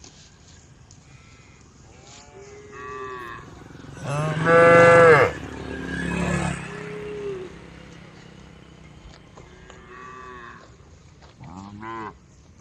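Cows mooing, several calls in turn: one loud, long moo about four seconds in, with fainter moos before and after it.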